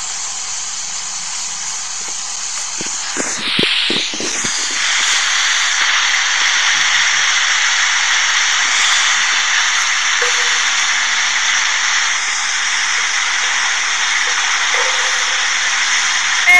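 Steady hiss with no speech or music, and a few dull low knocks about three to four and a half seconds in.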